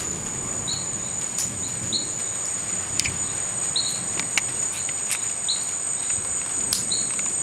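Night insect chorus: crickets keep up a steady, high-pitched trill. Over it come short chirps from another caller, about once a second, and a few sharp clicks.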